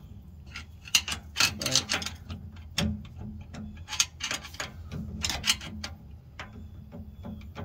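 Irregular metallic clicks and clunks from the worn spider gears of the Nissan Frontier's open rear differential as they are rocked and pried with a screwdriver. The gears move a lot: they are worn out.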